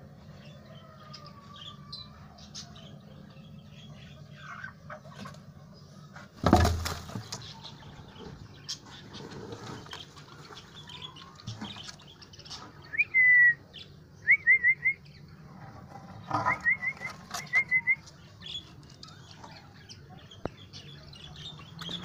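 Parakeets flapping and scuffling in a sudden loud burst about six seconds in, then giving short high chirps in quick runs of three to five about halfway through. A low steady hum runs underneath.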